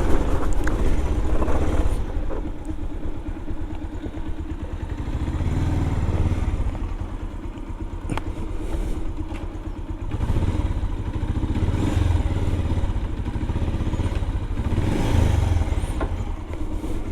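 Motorcycle engine running at low speed, its pulsing note rising and falling several times with the throttle. There is a single sharp click about eight seconds in.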